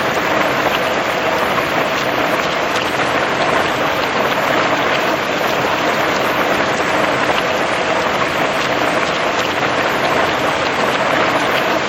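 Steady rain falling, an even hiss sprinkled with the ticks of individual drops.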